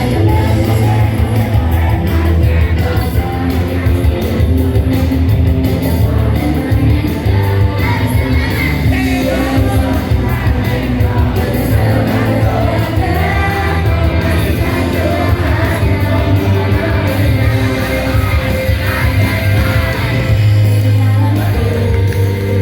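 Live band playing loudly, with heavy bass and a singer's voice over it, from about eight seconds in until near the end.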